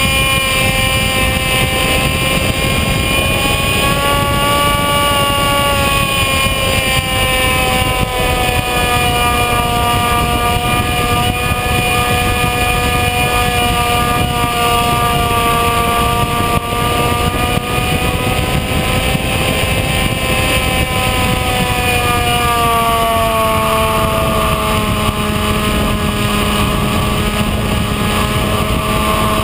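Electric motor and pusher propeller of a Bixler RC foam plane heard from its onboard camera: a steady whine that drifts slowly in pitch, dropping lower past two thirds of the way through, over wind noise on the microphone.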